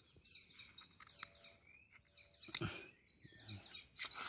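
Small birds chirping steadily in the background. Sharp crackles of adhesive tape being pulled off a small tin can come about two and a half seconds in and louder near the end.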